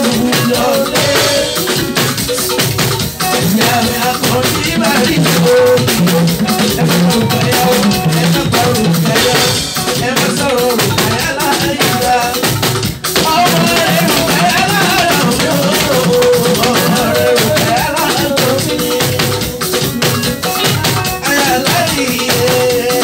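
Live band music with a drum kit and rattling hand percussion, and a man singing over it through a microphone and PA.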